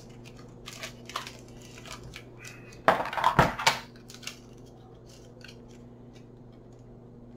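Rustling and crinkling of a CD sleeve being handled as a mini CD is slid out of it, with light scattered rustles, then a loud burst of crinkling about three seconds in and a few small clicks after.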